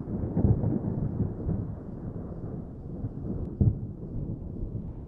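Storm sound effect: thunder rumbling low and continuous, with a sudden louder peak about three and a half seconds in.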